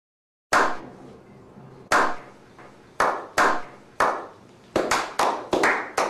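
A freshly landed bluefin trevally flapping, its body slapping against the ground. The sharp, irregular slaps start about half a second in and come faster toward the end.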